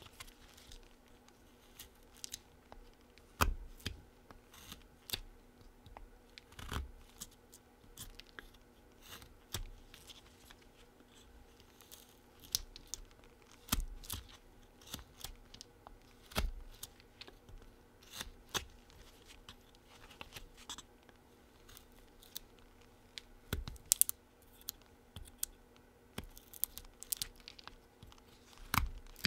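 A Flexcut Whittlin' Jack folding knife cutting into a wood blank: short, irregular slicing and scraping cuts as V-cuts are carved around the piece.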